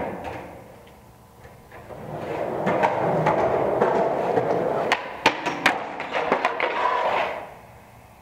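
Skateboard wheels rolling on concrete, growing louder as the skater approaches a six-stair handrail. Then comes a quick run of sharp wooden clacks as the board pops, strikes and clatters in a bail, before the rolling stops about seven and a half seconds in. There is also a single sharp knock at the very start.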